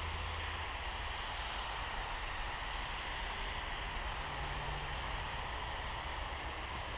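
Compressed-air paint spray gun with a top-mounted gravity-feed cup spraying paint: a steady hiss of air and atomised paint that starts abruptly as the trigger is pulled.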